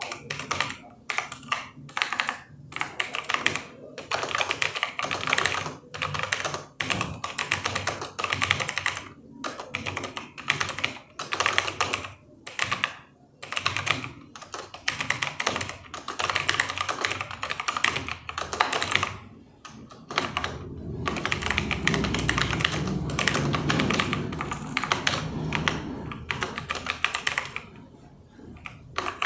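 Fast typing on a computer keyboard: continuous runs of key clicks broken by brief pauses, at a typing-test pace of about 65 words per minute. A low rumble sits beneath the typing for several seconds past the middle.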